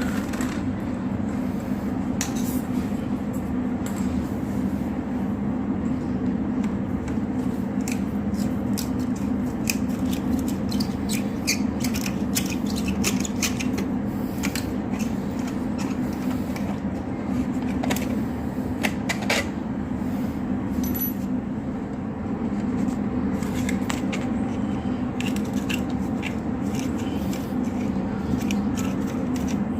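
Scattered small clicks, taps and scrapes of a screwdriver and hands working on a wall socket's plastic and metal parts, over a steady low background hum.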